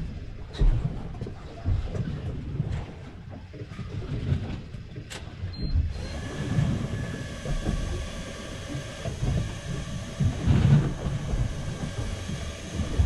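Wind buffeting the microphone aboard a small boat at sea, a gusting low rumble with a few light clicks and knocks of handling gear. About six seconds in, a steady mechanical hum of several tones joins it.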